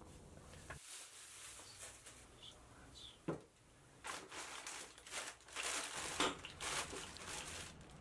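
Clear plastic packaging bags crinkling as they are handled, mostly in the second half, with one short knock a little after three seconds in.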